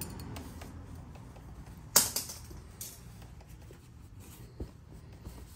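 Faint handling noises of hands working with small parts and a rag, with one sharp click about two seconds in and a duller knock later.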